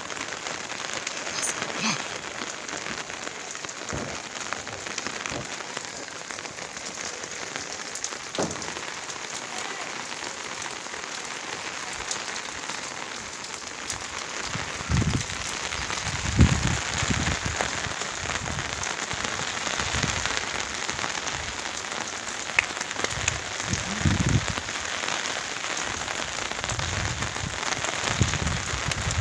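Heavy rain pouring down in a steady, dense hiss. From about halfway on it is broken by irregular low thuds.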